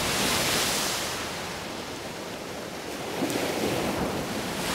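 Ocean waves washing as a sound effect, swelling at the start, easing off in the middle and building again after about three seconds.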